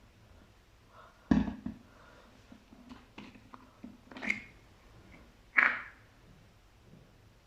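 Fluffy slime pressed and squished by hand, giving three louder squelches with small sticky clicks and crackles in between; the last squelch is the loudest.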